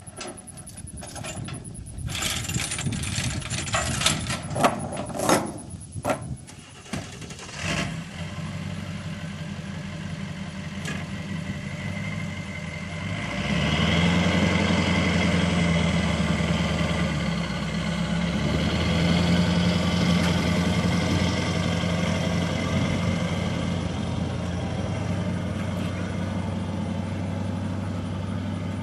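A few knocks and clicks, then a dual-rear-wheel pickup's engine starts and runs steadily about eight seconds in. Around thirteen seconds in it grows louder as the truck pulls away towing a gooseneck trailer loaded with two tractors, then holds a steady note.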